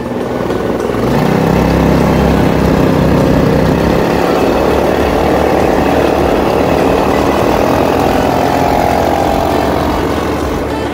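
Quad bike (ATV) engine running, picking up revs about a second in, then running steadily as it drives across sand.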